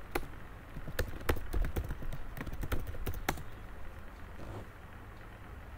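Computer keyboard keys clicking in a quick, irregular run of keystrokes as a word is typed, stopping about three and a half seconds in.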